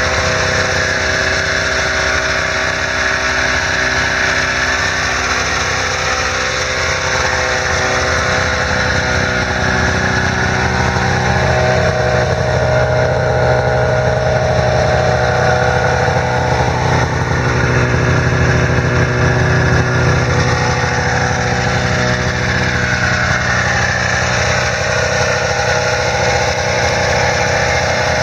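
A 1998 Arctic Cat ZR 500 snowmobile's 500cc liquid-cooled two-stroke twin idling steadily, getting a little louder through the middle.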